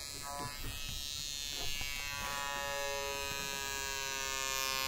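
Sustained buzzy synth tone with many overtones, held steady, while a hiss sweep rises above it in the second half: the build-up of an electronic dance track played from DJ decks.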